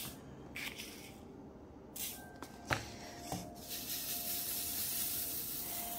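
Black resin diamond-painting drills tipped from a small scoop into a plastic drill tray in short rattling spills, with one sharp plastic click a little before three seconds in. From about four seconds in the tray is shaken and the many drills rattle across it in a steady hiss, settling them before they are picked up.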